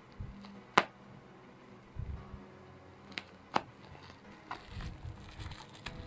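Plastic and bubble-wrap packaging being cut open with a small paring knife and handled: three sharp snaps, the loudest about a second in and two close together past the middle, with soft handling thuds and plastic crinkling near the end.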